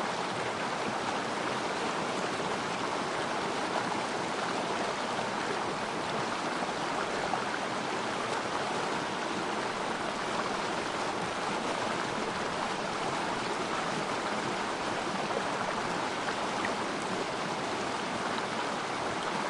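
Water of a small river stream flowing and burbling in a steady, even rush.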